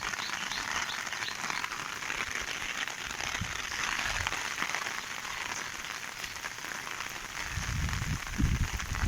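Heavy rain falling, a dense steady hiss of drops. Low rumbling bursts join in near the end.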